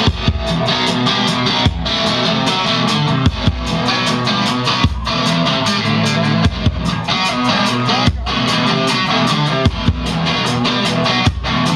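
Live rock band playing an instrumental intro on electric guitars, bass and drums, with strong drum accents about every second and a half.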